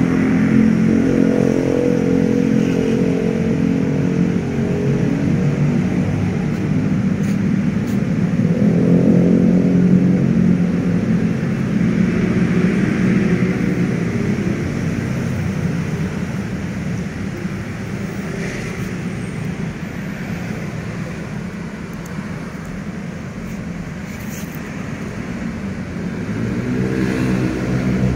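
Motor traffic running past: a steady low engine drone that swells louder as vehicles go by, around the start, about ten seconds in and again near the end.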